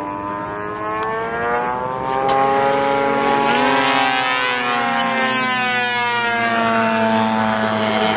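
Radio-controlled model airplane's engine and propeller buzzing through a low fly-by. It grows louder a couple of seconds in, and its pitch rises and then falls as it passes.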